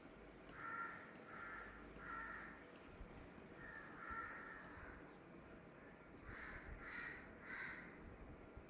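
Faint calls of a bird in the background: three short calls in a row about a second in, another near the middle, and three more in quick succession near the end.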